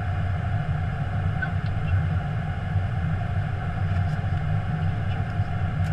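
Steady cockpit noise of an Airbus A321 in flight: a deep, even rumble of airflow and engines.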